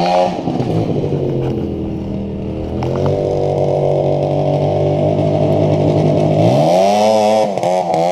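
440cc twin-cylinder two-stroke snowmobile engine on a go-kart revving under throttle. It settles lower, climbs about three seconds in to a steady higher pitch, then swings quickly up and down several times near the end as the throttle is blipped.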